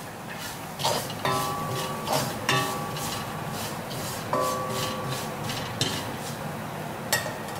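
A spatula stirring and scraping minced chicken and spice powder around a stainless steel honeycomb pan as it fries. Several knocks against the pan leave its metal ringing briefly.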